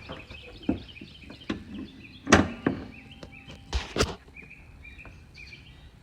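Small birds chirping in quick repeated notes, with several sharp thumps among them, the loudest about two and a half and four seconds in.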